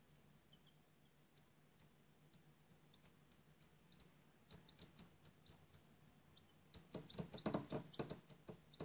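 Faint scattered ticks, then a quick flurry of louder taps and knocks near the end: a young chick pecking at the floor and cardboard wall of its brooder box.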